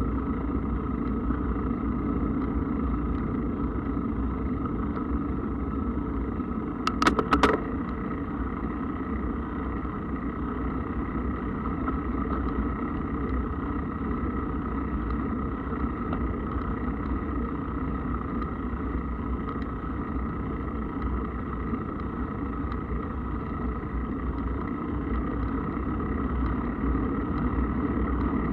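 Steady rumbling noise of a mountain bike being ridden along a path, with a short rattle of several clicks about seven seconds in.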